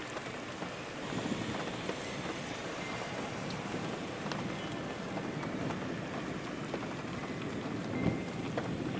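Steady rain beating on a window, with scattered single drops ticking, and a low rumble of thunder building near the end.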